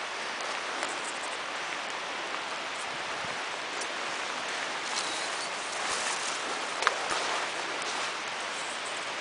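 Steady rain falling, an even hiss with a few sharper drop taps, one more distinct about seven seconds in.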